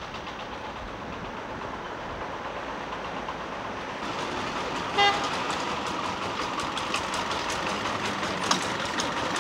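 A walking tractor's single-cylinder diesel engine chugging as it approaches, getting louder from about halfway through. A short horn toot sounds about five seconds in, and a single sharp click near the end.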